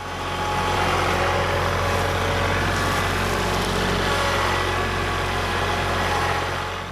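Kubota tractor's diesel engine running steadily. It fades in at the start and eases slightly near the end.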